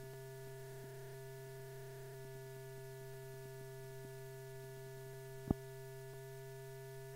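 Steady electrical hum with faint hiss on the soundtrack of an old film transfer, running on after the program has ended. There is one sharp click about five and a half seconds in.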